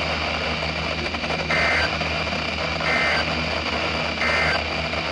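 Emergency Alert System end-of-message signal: three short screechy data bursts of two warbling high tones (SAME digital code), about a second and a half apart, over steady broadcast hiss and hum. The bursts mark the end of the severe thunderstorm warning message.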